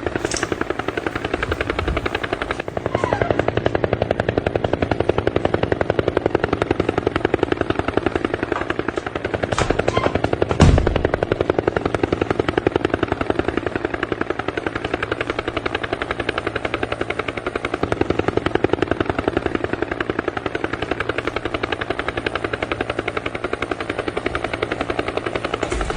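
Helicopter rotor beating in a fast, steady chop, with a sharp knock about ten and a half seconds in.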